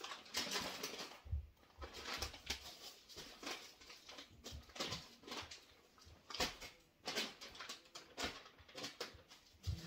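Plastic grocery bags and packaging rustling and crinkling as groceries are handled, in a string of irregular crackles with a few soft knocks.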